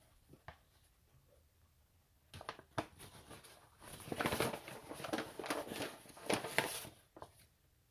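Paper flour bag crinkling and rustling as it is handled and its top folded shut: a few separate crackles at first, then about three seconds of denser rustling before it stops.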